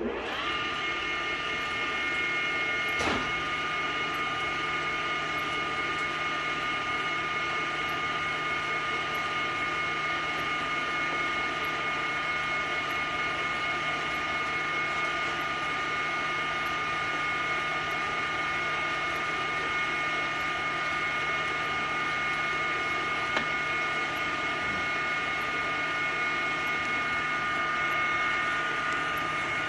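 A large old Schaerer lathe runs up and then turns steadily, spinning a Ford F350 rear differential housing in its chuck. A constant high-pitched gear whine rides over a low hum.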